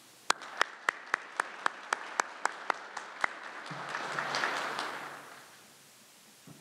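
Applause: sharp, evenly spaced claps close to the microphone, about four a second, then a broader wave of clapping from the audience that swells and dies away near the end.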